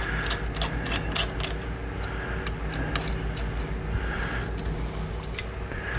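Irregular light metallic clicks and ticks of a small hand tool snugging the bolt that clamps a handlebar tube into its joint, over a steady low hum.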